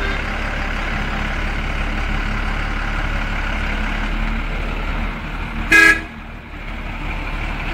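Fire-fighting water tanker truck running steadily, a loud mix of engine and rushing noise. Just before six seconds in comes one short, loud horn toot, and the running noise is briefly quieter after it.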